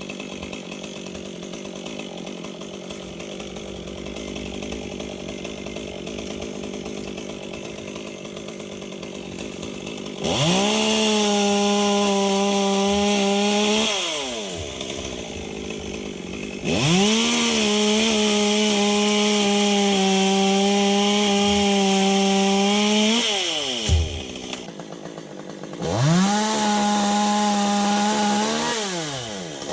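Two-stroke chainsaw idling, then revved to full throttle three times for a few seconds each, dropping back to idle in between.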